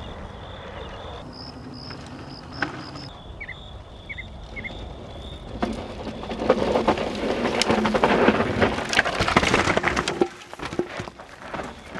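Mountain bike tyres crunching and skidding over loose dirt and gravel as the bike passes close by, spraying stones and grit. The noisy rush builds about halfway through and stops abruptly near the end, after a quieter stretch with a few short bird-like chirps.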